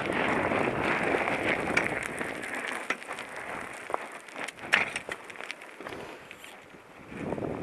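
Mountain bike riding down a dry, rocky dirt trail: wind rushing over the helmet camera's microphone with the tyres crunching on dirt and the bike rattling in sharp clicks. The rush eases about a third of the way in, leaving scattered clicks, and builds again near the end.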